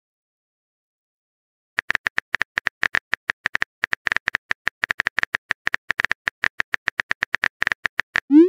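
Phone keyboard typing sound effect: a rapid run of short, light clicks, about seven a second, one per letter typed. Near the end a short rising pop, the message-sent sound.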